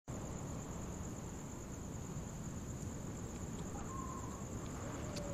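Rural night ambience: a steady high-pitched chorus of crickets over a low, even rumble, with a faint short distant call about four seconds in.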